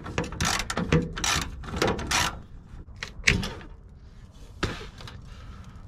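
Plastic evaporative (EVAP) canister box being worked loose by hand from under a pickup: an irregular run of scraping, rattling and knocking of plastic against its mount, with one sharp click about three seconds in.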